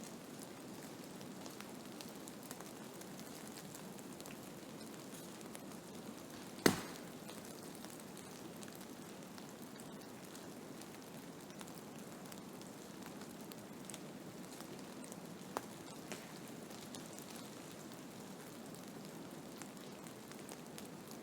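Blizzard ambience: a steady hiss of wind-driven snow with fine crackling ticks. A single sharp click about six and a half seconds in, and two faint ticks later.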